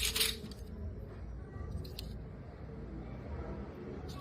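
Light handling noise from scrap phone motherboards: a short rustle at the start and a couple of soft clicks about two seconds in, over a low steady hum.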